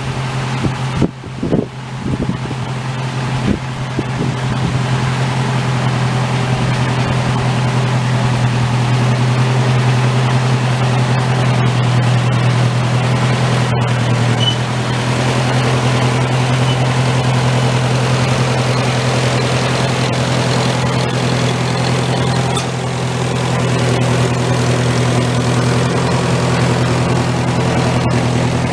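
Massey Ferguson tractor engine running steadily, with a few brief knocks near the start and a step up in loudness a few seconds in.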